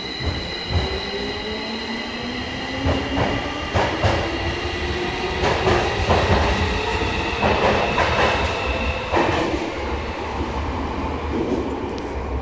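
Tokyo Metro 05 series subway train accelerating, the whine of its permanent-magnet synchronous traction motors and inverter rising steadily in pitch, with a few knocks from the wheels over rail joints. The highest part of the whine drops out about nine seconds in.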